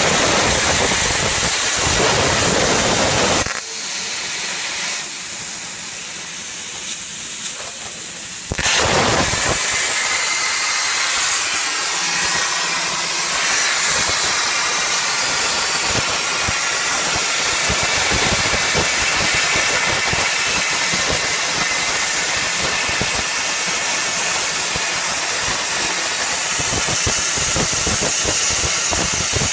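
CNC plasma torch cutting steel plate: a loud, steady hiss of the plasma arc. About three seconds in, it drops to a thinner, quieter hiss for about five seconds, then the full sound returns.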